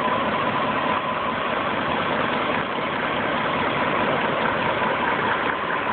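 1998 BMW 740i's 4.4-litre V8 idling steadily with a hiss over it, heard close up in the engine bay. The owner hears a slight knock, a shake and a hissing from somewhere in the engine and does not know the cause.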